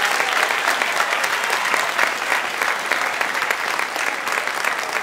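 Audience applauding, a dense patter of many hands clapping that eases slightly toward the end.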